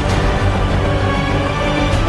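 Theme music with long held notes over a deep, steady bass.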